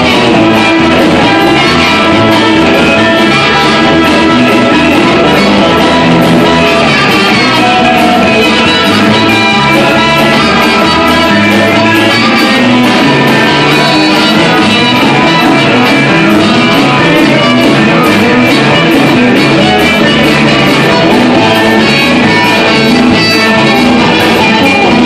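Live blues band playing loudly: electric guitar, bass guitar and drum kit, with a harmonica and a trumpet playing over them.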